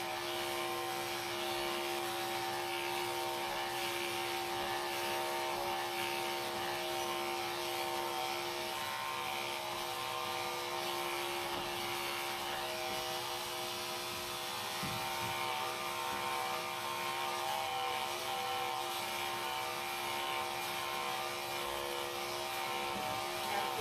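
Electric dog grooming clippers running with a steady buzz at one constant pitch while they clip a dog's coat.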